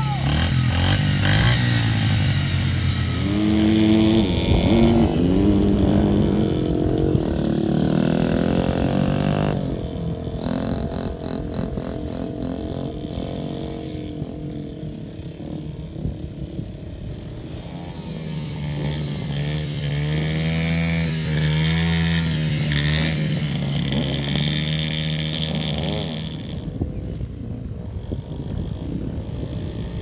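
Small single-cylinder four-stroke dirt bike engine running and revving, its pitch rising and falling as the throttle opens and closes. It drops off for a while partway through, then comes up again with more revving.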